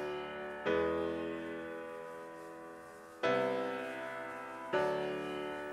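Background music: slow piano chords, a new chord struck three times and each left to ring and fade away.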